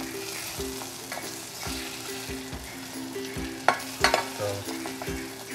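Onion rings sizzling in olive oil in a stainless steel saucepan over low heat while a spatula stirs and scrapes them, with two sharp knocks of the spatula against the pan a little past halfway.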